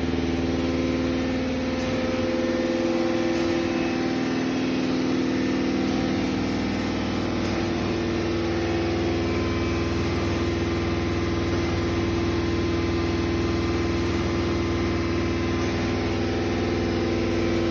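Springfield 2-1/2 A-TR vertical universal grinder running under power, a steady machine hum with several steady tones, as its table traverses, spindle strokes and cross pick feed work.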